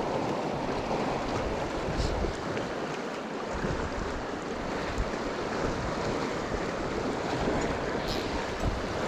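Rushing river water from a fast, high-running river, with gusts of wind buffeting the microphone.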